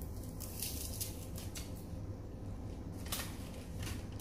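Crisp, brittle crackles of roasted seasoned seaweed sheets being bitten and chewed, a handful of separate crunches with the loudest about three seconds in, over a steady low hum.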